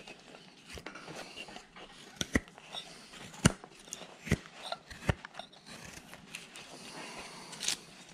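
Large rough-out carving knife slicing chips off a wooden block, with irregular sharp snicks of the blade over light scraping. The loudest cuts fall in the middle of the stretch.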